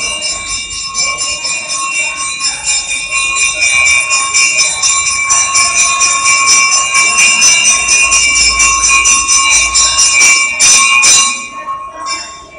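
Temple puja bell rung rapidly and without a break, several ringing tones sounding together over a quick, even stream of strikes; it stops about eleven seconds in.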